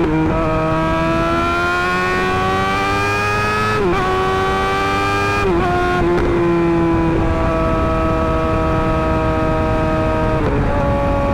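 Suzuki GSX-R600 inline-four engine through an M4 GP slip-on exhaust, running under steady throttle. Its pitch climbs slowly, dips briefly twice (about four and five and a half seconds in), holds nearly level, and then steps down near the end.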